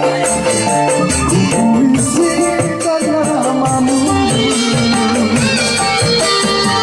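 Live band music with keyboard and kendang drum, over a quick, even beat of high rattling ticks.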